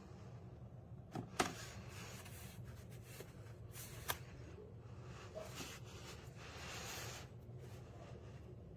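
Faint handling sounds: a few sharp clicks and soft rustles over a low steady hum.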